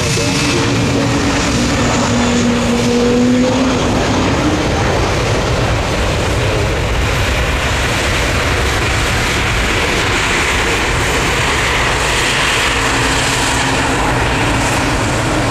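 Jet airliner passing close by the runway, its engines making loud, steady noise. A couple of steady engine tones can be heard over the noise during the first few seconds, then fade out.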